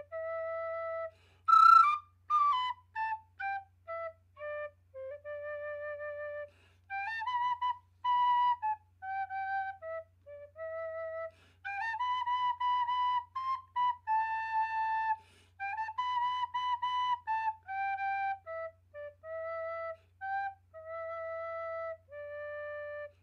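A solo melody played on a recorder: one note at a time, mostly held notes with short breaths between phrases and slight waver in pitch. About two seconds in, one note comes out loud and shrill, with a breathy edge. A faint steady low hum runs underneath.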